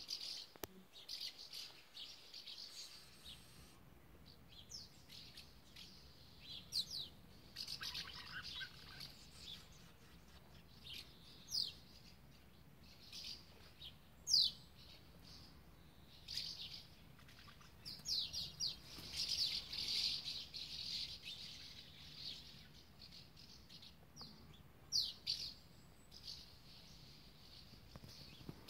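Small birds chirping and calling in short high-pitched bursts, some with quick swooping changes of pitch, on and off throughout, busiest twice.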